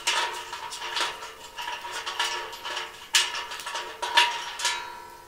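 Clinks and knocks of metal parts against the Feuerhand Tyropit's double-walled stainless steel bowl while a foot bracket is screwed on by hand. Five or six sharp strikes leave the bowl ringing briefly.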